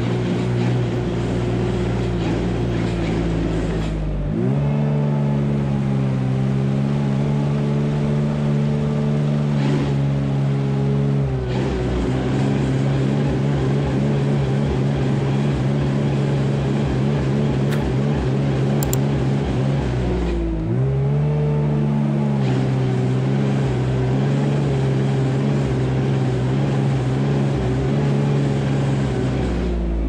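Tractor diesel engine running steadily, its pitch shifting up and down a few times.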